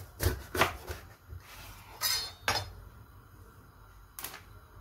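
Kitchen knife cutting through a red bell pepper on a plastic cutting board: a few sharp knocks of the blade and pepper on the board, with a longer crisp cutting sound about two seconds in.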